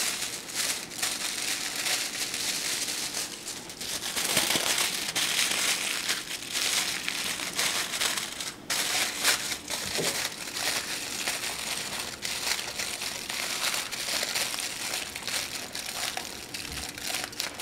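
Aluminium foil crinkling and rustling as hands fold and crimp the edges of a foil packet shut: an ongoing crackly rustle with a few short pauses.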